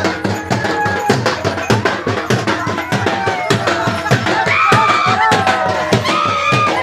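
Folk drums beaten in a fast, steady rhythm, with a high held and bending melody line playing over them, stronger in the second half.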